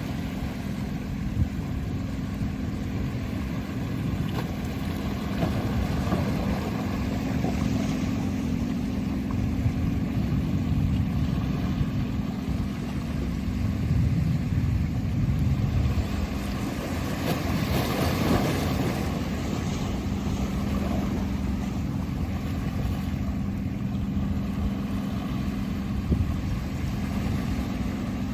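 Motorboat engine running steadily, a low hum with a steady tone, over waves washing in the harbor. A louder rush of noise swells about two-thirds of the way through.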